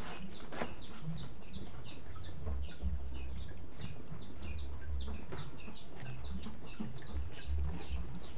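Chickens calling: a steady run of short, high, falling chirps, about three a second.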